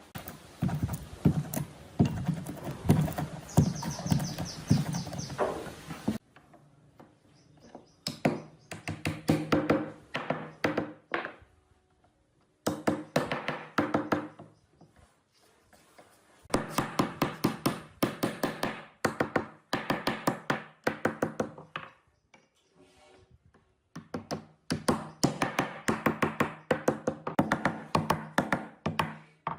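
Runs of quick, repeated knocks on wood, several a second, coming in five bursts with short silences between them.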